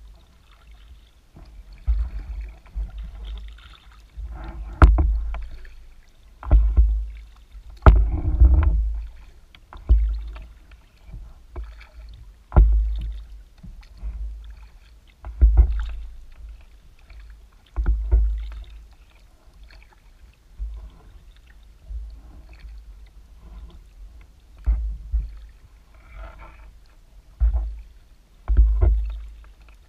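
Kayak being paddled: a paddle stroke about every two to three seconds, each a low thud and splash of water, a few starting with a sharp knock.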